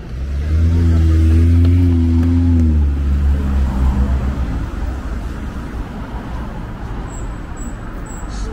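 A motor vehicle's engine passing close in city traffic: a loud, low engine hum swells about half a second in, holds for about two seconds, then fades back into steady traffic noise.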